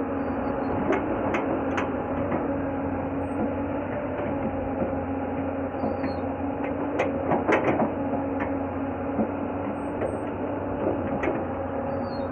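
Hydraulic excavator's diesel engine running steadily with a low hum while its steel bucket digs into clay soil and stones, with scraping and scattered clacks of rocks against the bucket, loudest in a cluster about seven seconds in.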